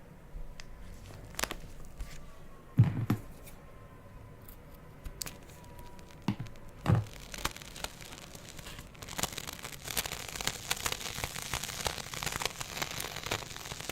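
Slime being squished and stretched by hand: scattered sticky pops and clicks with two louder dull thumps, turning into dense crackling from about nine seconds in.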